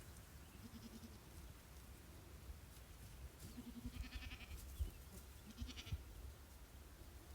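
Goats bleating: a few short, faint bleats, the clearest about four seconds in and again just before six seconds, over a low rumble.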